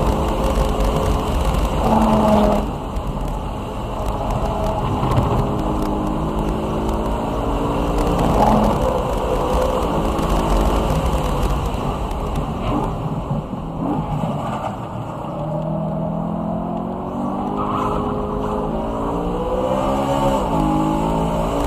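BMW E92 M3's V8 engine at speed on a race track, its pitch rising and falling as it accelerates, shifts and slows. Through the second half the engine climbs steadily, with a quick drop and climb again near the end, as at a gear change.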